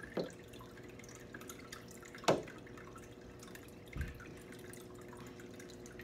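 Water dripping: a few separate drops, the loudest a little past two seconds in, with a soft low thud about four seconds in, over a faint steady hum.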